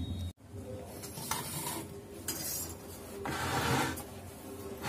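Sheet-metal cabinet cover of a Microtek EB700 inverter being worked loose and slid off by hand, metal scraping and rattling in several short bouts.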